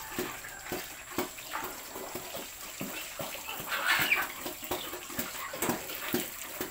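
A sow in a farrowing crate grunting in short, low grunts, about two a second, with a louder, rougher sound about four seconds in.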